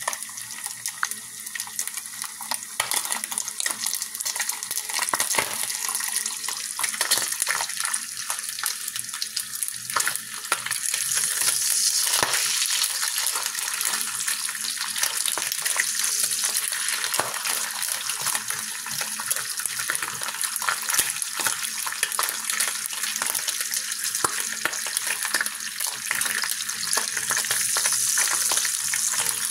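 Turkey bacon sizzling in hot fat in a skillet, a steady crackling hiss full of small pops, growing a little louder about eleven seconds in.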